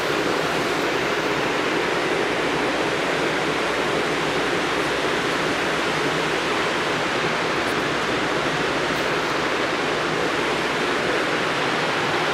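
Loud, steady rushing noise with no beat and no distinct tones, typical of the din in a noisy workplace where ear protection is needed.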